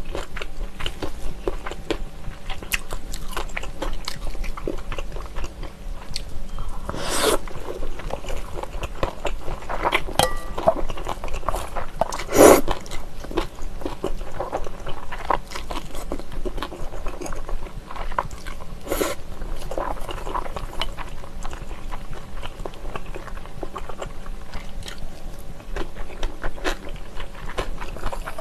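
Close-miked eating of chewy jjolmyeon noodles with shredded vegetables: steady wet chewing and crunching with many small mouth clicks, broken by a few louder slurps of noodles, the loudest about twelve seconds in.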